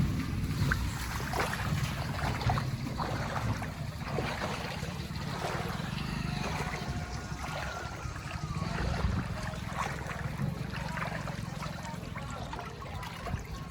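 Water splashing and trickling over the steady low hum of a running engine.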